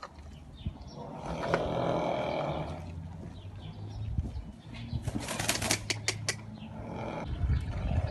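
Arabian horse snorting: a breathy blow through the nostrils about a second in, then a rapid fluttering snort a few seconds later as the nostrils vibrate.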